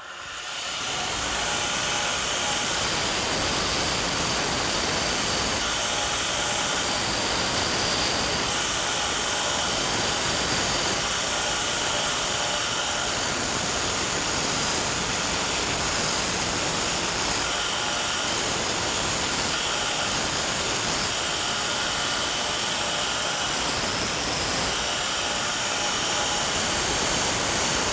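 Power grinder grinding the chipped edges off a hardened steel farrier's fuller, removing the chips from its striking surface. It comes up to speed in the first second, then runs with a steady grinding hiss.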